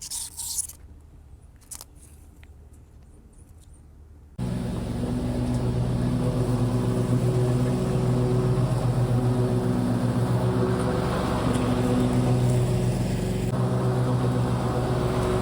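Gravely ZTX-42 zero-turn mower's engine running steadily. It comes in abruptly about four seconds in, after a few light clicks and handling sounds.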